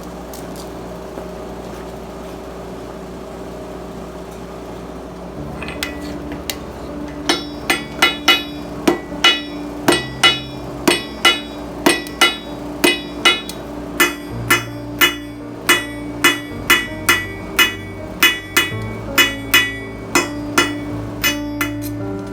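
Hammer blows on a mild steel bar over the anvil while forging. After a steady hum, ringing strikes start about six seconds in and go on at roughly two a second.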